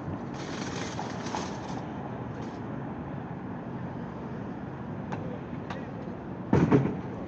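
City street noise with steady traffic running. About a second in there is a brief hiss, and near the end a short, loud thump.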